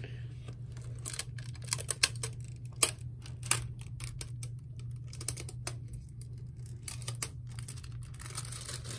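Clear plastic protective film being peeled off a new laptop's hinge strip and screen bezel: a run of sharp, irregular crackles and clicks, rougher and more continuous near the end. A steady low hum runs underneath.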